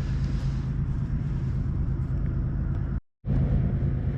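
Steady low rumble of outdoor background noise, cut off by a brief total silence about three seconds in before it resumes.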